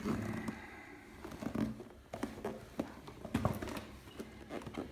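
Handling noise from a boxed hole punch: irregular knocks and scrapes, about one every second or less.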